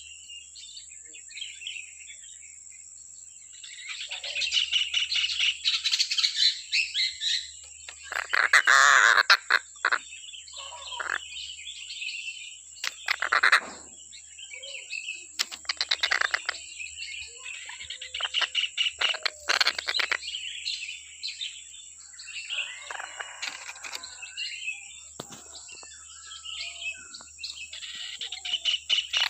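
Collared kingfisher (tengkek buto) calling in harsh, raspy bouts of rapid repeated notes, some loud, coming every second or two with short gaps.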